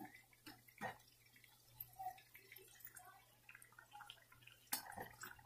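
Samosas deep-frying in hot oil: faint crackling and popping of the oil, with a few light knocks of a perforated metal skimmer against the pan as the samosas are turned, a cluster near the start and two more near the end.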